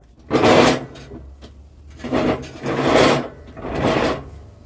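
John Deere S160 lawn tractor's mower deck being dragged and shoved under the tractor, scraping in four strokes: one about half a second in, then three close together between two and four seconds in.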